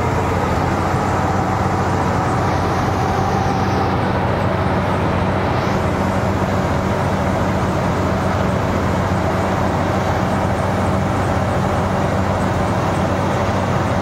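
Marksan K-BOS MS1200 tracked combine harvester running steadily as it cuts and threshes rice: a constant drone of engine and threshing machinery with a steady low hum.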